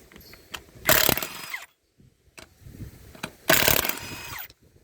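Ridgid half-inch impact wrench hammering loose truck lug nuts torqued at 150, in two bursts of about a second each.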